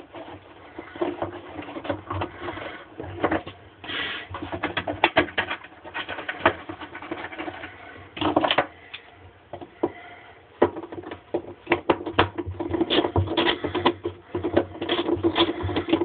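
Irregular clicking and knocking of hard plastic parts as the washer's drain filter cover is worked and pushed into place, with many sharp taps in quick clusters.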